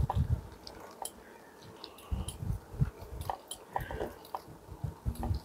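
Bicycle riding along a rough village lane, heard through a camera clamped to the handlebars: irregular crunching and clicking, with scattered low bumps.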